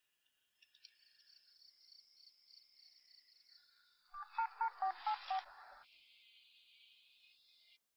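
Mobile phone keypad touch-tones: six quick dual-tone beeps, about five a second, as a number is dialled, over a faint high-pitched pulsing background sound.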